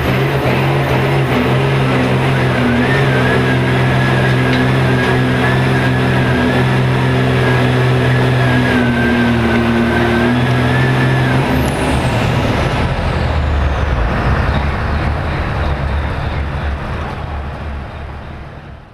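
John Deere hot farm pulling tractor's turbocharged diesel engine running at high, steady revs under load, with a steady turbo whistle, heard from on board. About eleven and a half seconds in the throttle is cut: the turbo whine falls away in pitch and the engine drops to a lower, rougher note, which fades out near the end.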